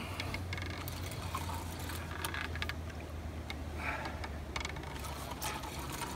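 Fishing rod and reel being worked to bring in a hooked fish: scattered small clicks and rattles from the reel and handling, over a steady low hum.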